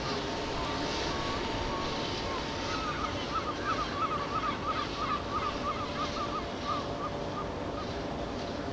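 A bird calling in a rapid series of short, repeated notes, about three a second, starting about three seconds in, over a steady low rumble.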